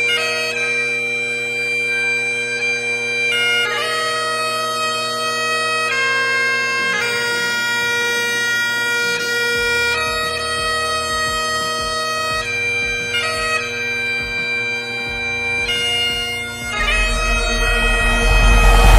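Bagpipe music playing a slow lament: a steady drone under a melody of long held notes. Near the end a low rumbling noise swells in beneath it.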